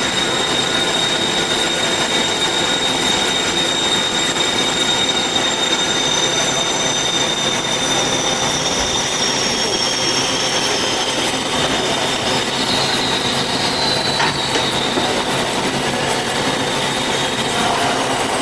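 Band saw running under a cut: a steady grinding noise with a high, constant squeal from the blade, and a second whine that slowly slides down in pitch about halfway through.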